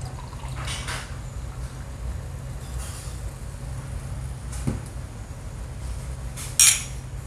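Two glasses clinked together in a toast near the end, one sharp bright clink, the loudest sound here. Before it, cola is poured into a glass and there is a soft knock on the table, over a steady low hum.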